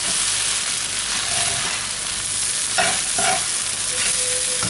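Rice and vegetable mixture sizzling steadily as it fries in a pan, with a few scrapes of a utensil stirring it against the pan bottom about three seconds in.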